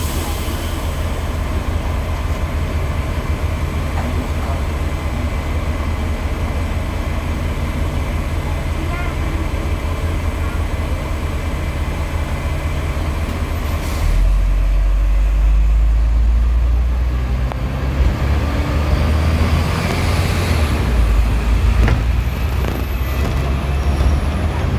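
Hong Kong double-decker tram heard from on board: a steady rumble over street traffic while it stands, then about 14 seconds in a much heavier low rumble as the tram pulls away along the rails.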